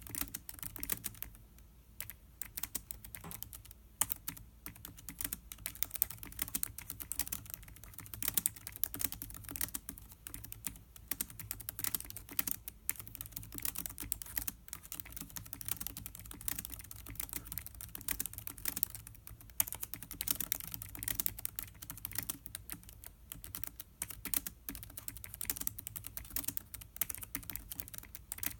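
Typing on the built-in keyboard of a 2016 Lenovo ThinkPad X1 Carbon laptop: a fast, irregular run of soft key clicks with brief pauses.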